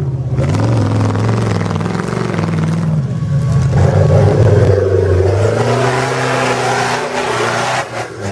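Trial 4x4 competition vehicle's engine revving hard under load, the pitch rising and falling as the throttle is worked. The engine eases off near the end.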